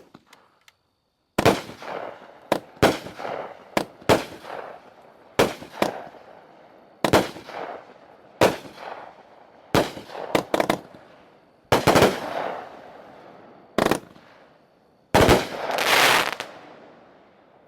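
A 15-shot, 200-gram consumer firework cake firing: a string of sharp shots, some coming in quick pairs and clusters, each trailing off in noise. The last shot, near the end, is the loudest and longest.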